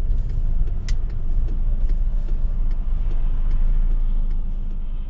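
Steady low rumble of a car driving, heard from inside the cabin, with a few light clicks here and there.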